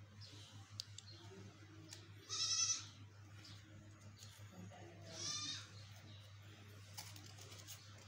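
An animal calls twice, about three seconds apart, each a short wavering call; the first is the louder. A steady low hum runs underneath.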